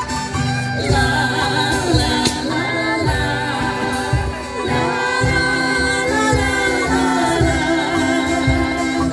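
Angklung ensemble playing a song, with a woman singing the melody over a steady low beat from a cajón.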